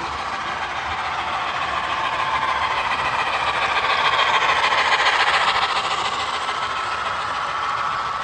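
Model train running along the layout track, its motor and wheels clattering steadily, growing louder to a peak about halfway through and then fading as it passes.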